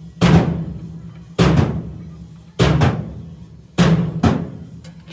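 Heavy hammer blows on steel, roughly one strike a second, each ringing briefly and followed by a lighter second hit.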